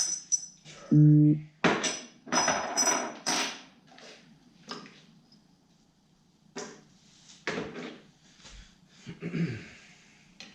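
Metal tools and engine parts clinking and knocking against each other during hand work on a snowmobile engine, some strikes ringing briefly. A short low buzz about a second in is the loudest sound, with sparser taps and handling later.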